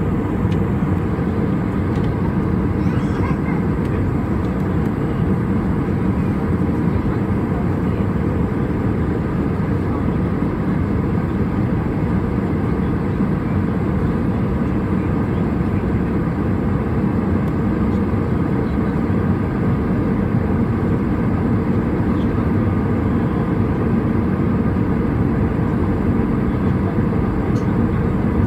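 Steady cabin noise inside an Airbus A320 airliner descending through cloud toward landing: the low rumble of the jet engines and the airflow over the fuselage.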